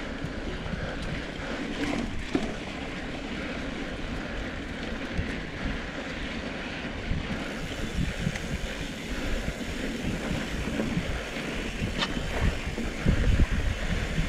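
Mountain bike rolling fast down a sandy dirt trail: tyre and trail noise under steady wind rushing over the microphone, with a few louder thumps from the bike near the end.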